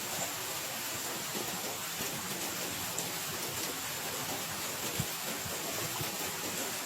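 Heavy rain falling steadily, an even hiss with a few soft low thuds of drops striking nearby, one of them clearer about five seconds in.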